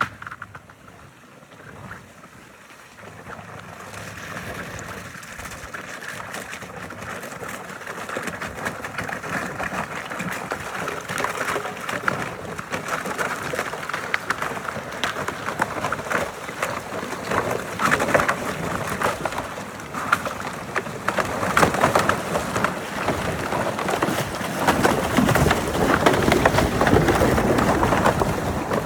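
Vehicle tyres crunching through ice and splashing through icy water: a dense crackling and sloshing that grows steadily louder.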